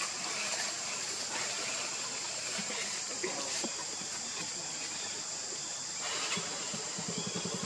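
Steady outdoor background hiss with an even high-pitched drone. A low, rapidly pulsing engine sound comes in near the end.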